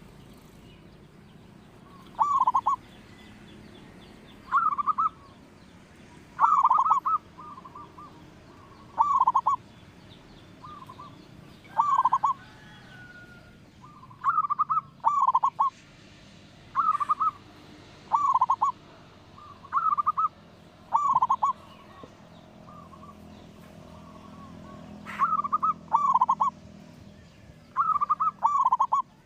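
Zebra dove (perkutut) cooing: a short, loud cooing phrase repeated over and over, roughly every one to two seconds, sometimes two in quick succession.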